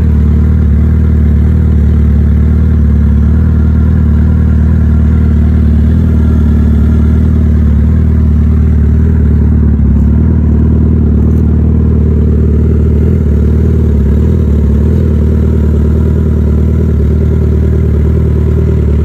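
Suzuki Hayabusa's inline-four engine idling steadily.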